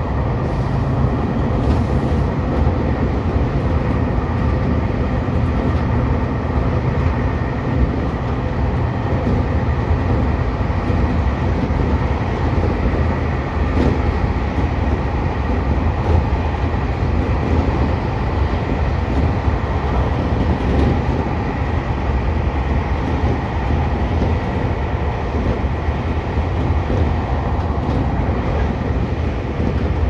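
Seibu 2000 series electric commuter train running along the line, a steady rumble of wheels on rails and running gear heard from inside the front of the car, with a faint steady whine above it.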